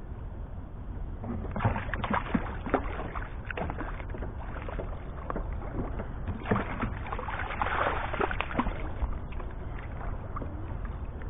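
Irregular knocks and water splashing at a plastic fishing kayak while a hooked barracuda is brought alongside, with a burst of splashing about eight seconds in, over a steady low rumble of wind on the microphone.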